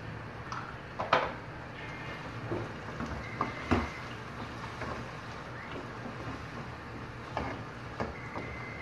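Wooden spatula stirring frying tomatoes and onions in a metal saucepan, with a few sharp knocks of the spatula against the pot, the loudest about a second in and just before four seconds.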